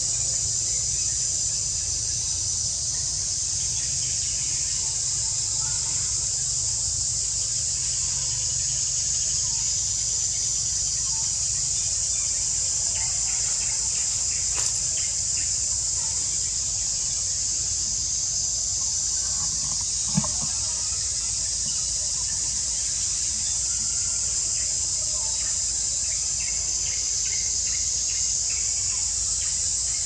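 Steady high-pitched drone of insects, unbroken, over a low steady rumble. Two brief clicks, about fifteen and twenty seconds in.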